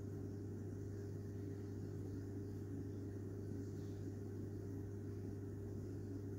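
Faint, steady low hum of an aquarium filter pump running, with no change throughout.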